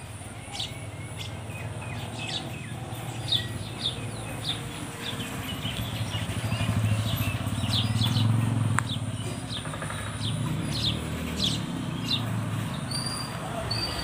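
Sparrows chirping: many short, quick chirps repeated irregularly. A low rumble underneath swells in the middle and is the loudest part.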